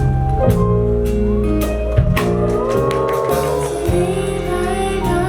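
Live band playing a soft pop ballad, with guitar, drums and a sung line.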